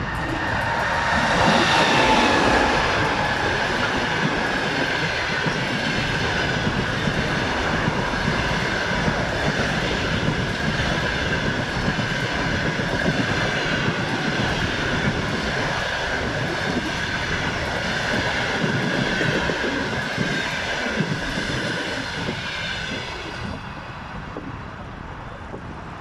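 An EP20 electric locomotive and its passenger train passing at speed, with wheels clattering on the rails. A steady high whine runs with it, loudest about two seconds in, and fades near the end as the last cars go by.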